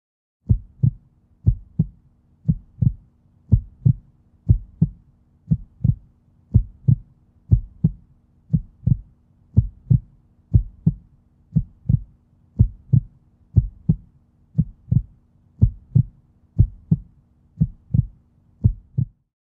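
Heartbeat sound effect: deep double thumps, lub-dub, about once a second over a faint low hum, stopping just before the end.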